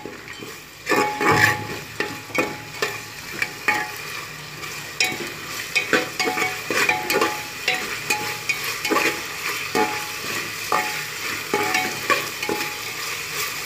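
A utensil stirring and scraping against the metal pressure cooker in repeated short strokes, about one or two a second, as ginger-garlic paste fries in hot oil with a steady sizzle underneath.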